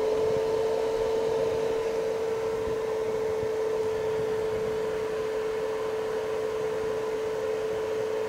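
Cooling fan of an Acme DynaRock Party Scan barrel scanner light running just after power-on: a steady one-note hum, very noisy.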